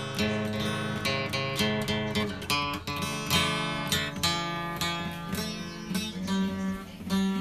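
Steel-string acoustic guitar strummed in a steady rhythm, the chord changing a few times: a learner practising chords from a chord sheet.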